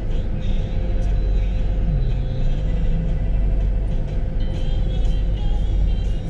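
Steady low rumble of idling vehicle engines, heard from inside a stationary car's cabin.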